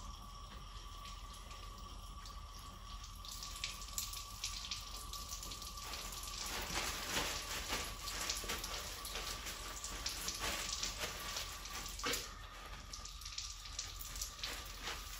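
Laboratory sink faucet running steadily while hands are rinsed under it. Partway through, paper towels rustle and crinkle as the hands are dried, with the water still running.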